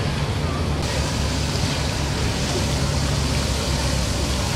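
Steady harbour background noise: a low rumble with a constant hum, under a hiss and faint voices. The hiss turns abruptly brighter about a second in.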